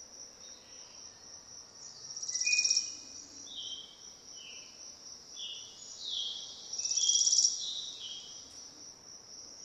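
Outdoor ambience of a steady high insect chirring, likely crickets, with birdsong over it: a series of short whistled notes and two louder rapid trills, about two and a half and seven seconds in.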